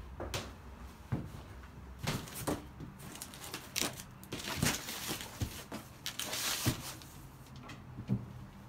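Irregular rustling, light knocks and scrapes of cardboard boxes, bags and plastic crates being handled while rummaging through stored belongings, with a few louder rustles in the middle.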